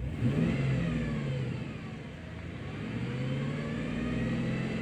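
2007 GMC truck engine revved up, eased back, then revved again, with a whine that climbs and falls with engine speed. The owner hears the whine coming from the lower front of the engine and suspects the harmonic balancer or the water pump.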